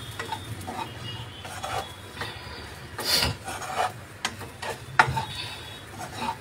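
Black spatula scraping and stirring shredded chicken and chopped capsicum around a nonstick wok, in irregular strokes with a louder scrape about three seconds in and a sharp knock against the pan about five seconds in.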